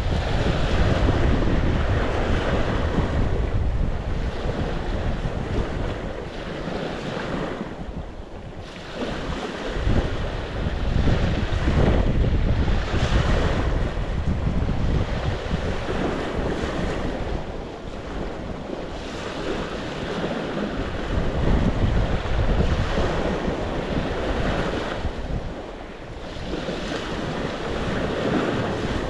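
Sea waves breaking and washing on the shore, swelling and ebbing every few seconds, with wind rumbling on the microphone.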